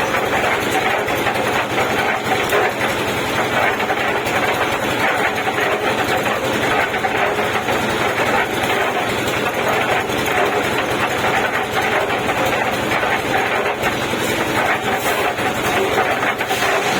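Concrete mixer machine's engine running steadily.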